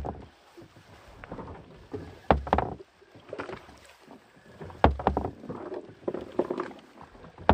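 Water slapping against the hull of a small fishing boat, about every two and a half seconds. Each slap is a sudden thump followed by a short wash of water.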